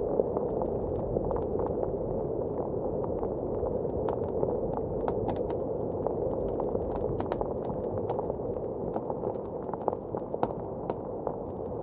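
Fireplace crackling with frequent irregular sharp pops and snaps, over a steady muffled rush of blizzard wind.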